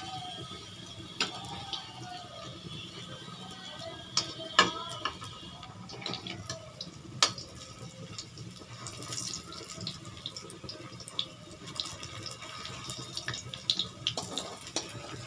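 Jackfruit kofta balls sizzling as they deep-fry in hot oil in a kadhai, with a perforated slotted spoon clinking sharply against the pan several times as they are turned.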